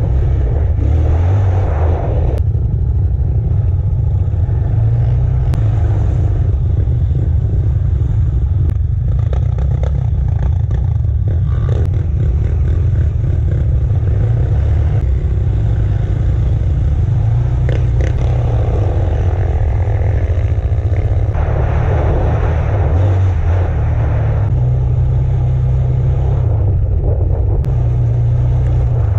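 Sport quad (ATV) engine running under way on a rough dirt trail, its pitch rising and falling with the throttle over a steady low rumble.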